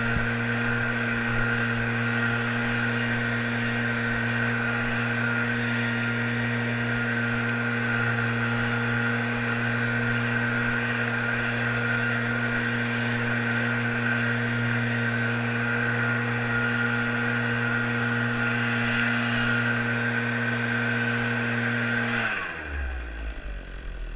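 Small gasoline engine on lawn care equipment held at full throttle and running steadily, then throttled down and winding off quickly near the end.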